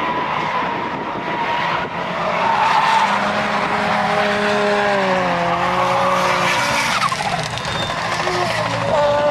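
Drift car engines revving hard while the tyres squeal and skid sideways through a corner. The engine pitch rises and falls as the throttle is worked, over a constant hiss of tyre noise.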